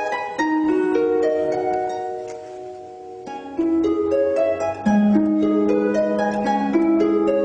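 Solo harp playing rippling arpeggios of plucked, ringing notes. It gets softer about two seconds in, picks up again a little after three seconds, and adds low bass notes from about five seconds in.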